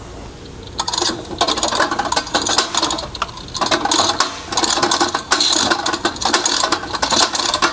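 Coxreels spring-driven hose reel drum spun backwards by hand, its declutching spring arbor making a rapid clicking rattle as it slips on each turn of the drum. The noise is harmless: the arbor is built to declutch, and nothing is breaking.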